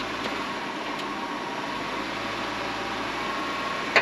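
Jeep Wrangler engine running steadily at low revs as the Jeep creeps over boulders. A brief sharp sound comes right at the end.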